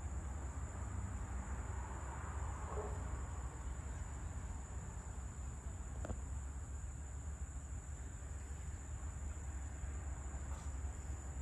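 Evening insect chorus: a steady, high-pitched, unbroken ringing over a low steady rumble, with one faint click about six seconds in.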